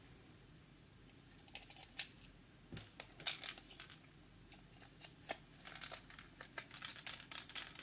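Faint, irregular clicks and ticks of a small screwdriver and the plastic case of a Kill-A-Watt power meter being handled while the meter is screwed back together.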